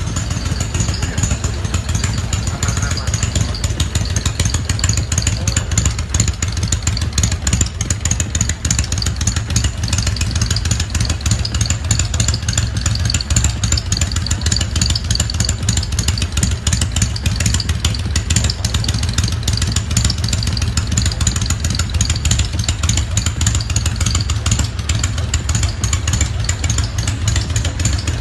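Yamaha XV535 custom bobber's V-twin engine idling steadily with an even, rapid low pulse and a solid, full sound.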